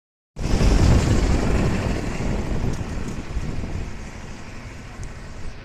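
Road and traffic noise with wind rumbling on the microphone while riding along a street, loudest in the first second and then easing off.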